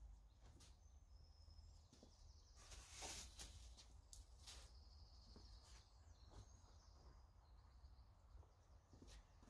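Near silence: faint outdoor background with a few faint high bird chirps and scattered soft rustles.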